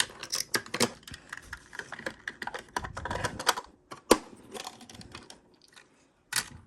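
Small plastic miniatures and a toy fridge being handled, with rapid, irregular light clicks and taps and a sharper knock about four seconds in.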